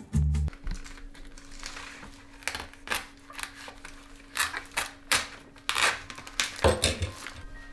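Plastic film on a tray of raw chicken being slit with a knife and peeled back: a string of sharp, irregular crackles and clicks, the loudest near the end.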